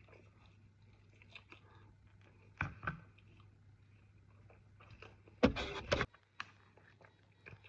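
Eating sounds: a few short bites and chewing noises over a faint steady hum, with a louder short noise about five and a half seconds in.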